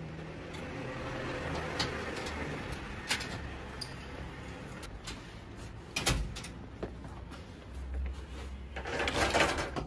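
Front door being handled: scattered clicks over a low steady hum, a sharp knock about six seconds in, and a louder burst of rustling noise near the end.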